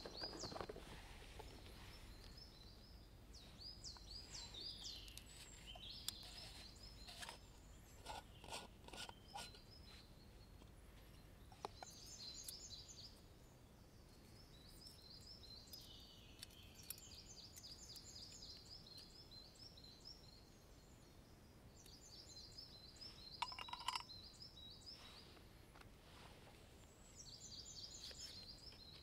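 Faint songbirds singing in woodland, repeating short high trilling phrases every few seconds. A few light clicks and clinks come from small metal camping-stove parts being handled.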